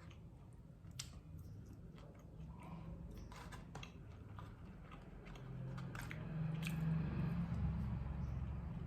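Close-miked chewing and biting of food, with scattered crisp clicks over a low, steady mouth sound that grows louder in the second half.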